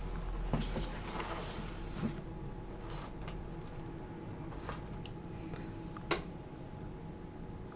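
Scattered light clicks and rustles of takeout food containers being handled as a chicken wing is picked out.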